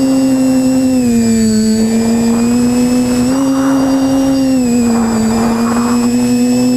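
Quadcopter drone's motors and propellers humming steadily, heard from the drone itself. The pitch dips slightly about a second in, rises a little after three seconds, and dips again near five seconds, with brief rushes of noise in between.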